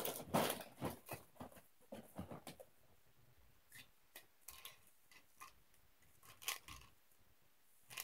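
Toy packaging being pulled and worked at by hand, rustling and crinkling, with scattered small clicks; the loudest crackling comes in the first second or so.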